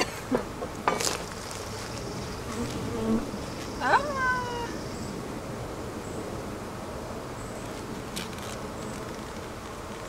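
Honeybees buzzing as a steady hum around an open hive, with a sharp click about a second in and a brief gliding tone about four seconds in.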